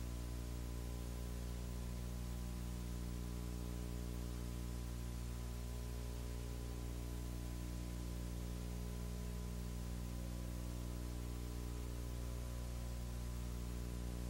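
Steady electrical mains hum with a stack of buzzing overtones and a layer of hiss, unchanging throughout.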